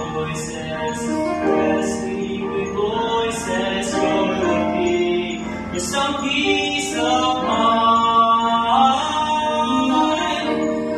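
Vocal trio of three boys singing in harmony, with several voices holding long notes together and changing chords between phrases.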